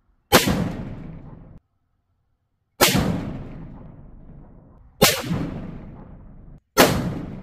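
Savage .338 Lapua Magnum rifle with a tuner muzzle brake firing four shots, about two seconds apart. Each loud report trails off in a rolling echo that is cut short.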